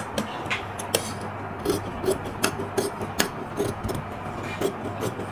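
Metal tailoring scissors cutting through dark blouse fabric along chalked lines: irregular sharp blade snips, a few a second, with the rasp of the blades through the cloth.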